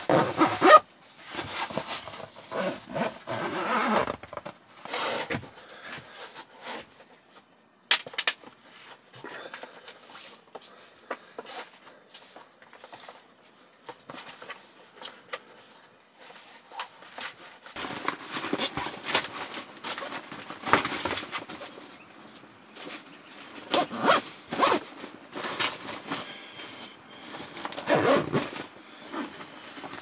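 Irregular rustling, clicks and knocks of gear being handled and packed up.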